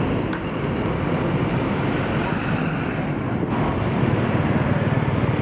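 Street traffic noise: motor scooter and motorbike engines running and passing in a steady rumble.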